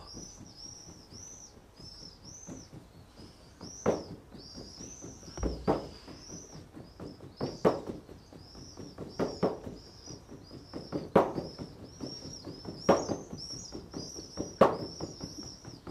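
A hand striking a cloth-covered table in a slow, steady beat, about one blow every 1.7 seconds, the blows getting louder toward the end. A small bird sings a high, quickly repeated chirping note throughout.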